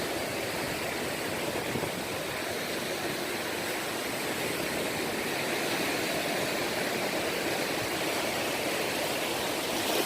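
Steady rushing of choppy sea water with no clear breaks or individual impacts.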